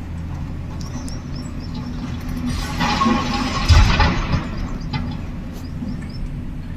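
Excavator diesel engine running steadily, with a burst of rattling and a heavy thud about halfway through.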